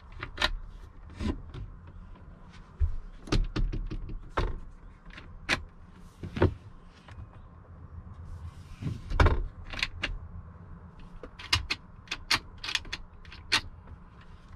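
Push-button cabinet latches clicking and wooden cabinet doors being opened and pushed shut: an irregular string of sharp clicks and knocks, the loudest about nine seconds in.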